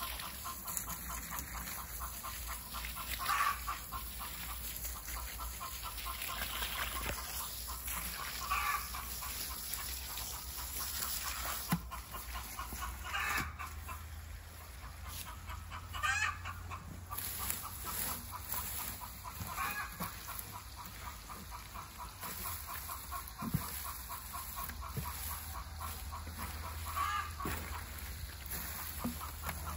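Chickens clucking, with a louder call every few seconds. Water from a garden hose pours into a wheelbarrow of straw and clay.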